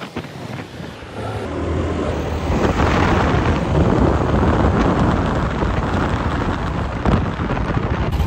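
Wind rushing over the microphone of a phone carried on a moving motorcycle, mixed with road and motorcycle noise. It builds about a second or two in and stays loud.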